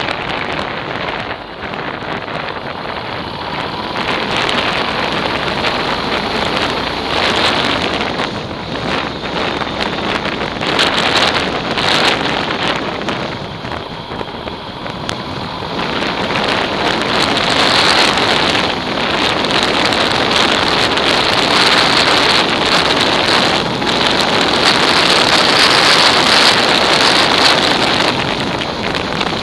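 Wind buffeting an action camera's microphone on a moving motorcycle: a loud, steady rush that dips briefly about halfway through and is louder from about 17 seconds in.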